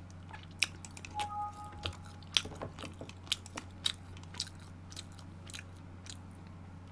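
Close-miked mouth chewing food, with soft, irregular wet clicks and smacks.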